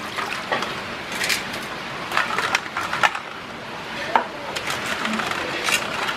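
Boiled eggs being rinsed by hand in water in a metal bowl: water sloshing, with irregular light clicks and knocks as the eggshells hit each other and the bowl.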